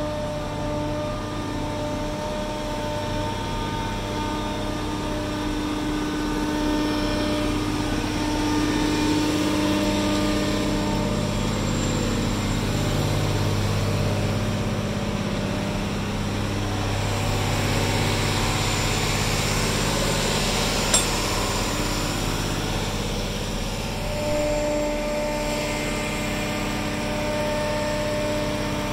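Mobile crane's diesel engine running steadily under load. Its pitch drops about a third of the way through and rises back near the end. A single sharp click comes about two thirds of the way in.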